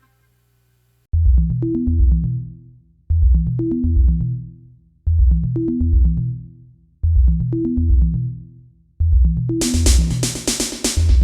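Electronic dance-style background music: after about a second of silence a deep kick-drum and bass figure starts, repeating every two seconds, and bright hi-hats join near the end.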